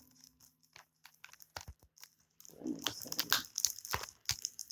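Plastic wrapping on a Blu-ray case being picked at and torn open, a string of crinkles and crackles that starts about halfway through.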